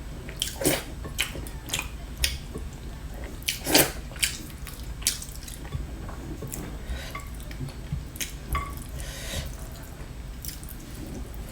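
Eating rice, lentils and vegetables: irregular wet mouth clicks and smacks while chewing, a few of them sharper and louder.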